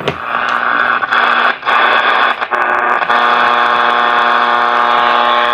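Portable AM radio tuned between stations, giving out loud static hiss with a few brief dropouts. From about three seconds in, a steady buzzing hum with many overtones sits over the hiss.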